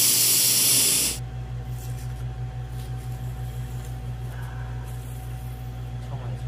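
An aerosol spray can releasing a loud hiss that cuts off suddenly about a second in, followed by a steady low hum.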